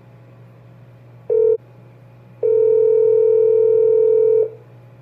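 Two electronic beeps at the same pitch, a short one about a second in and a long one of about two seconds, over a steady low electrical hum.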